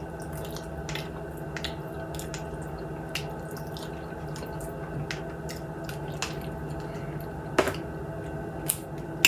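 Close-up eating sounds of fried chicken: scattered wet mouth clicks and smacks while chewing, with a sharper click twice near the end, over a steady low hum.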